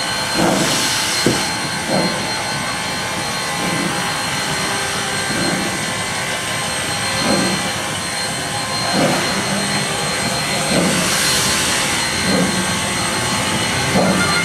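Steady outdoor rushing noise picked up by a camcorder microphone, with two brief stronger hisses and short, faint low sounds every second or two.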